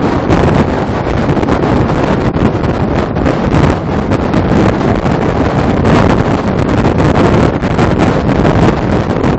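Heavy wind buffeting the microphone at highway speed, over the low rumble of the truck and trailer on the road.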